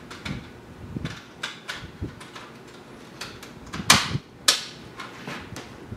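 Metal clicks and knocks as an optical drive is pushed and jiggled into a drive bay of a steel desktop computer case, with two sharper, louder knocks about four seconds in.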